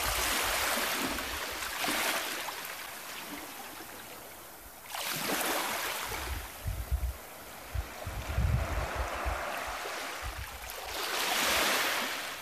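Small waves breaking and washing up a sandy beach: three swells of surf, near the start, about five seconds in and near the end. Wind buffets the microphone with low thumps in the middle.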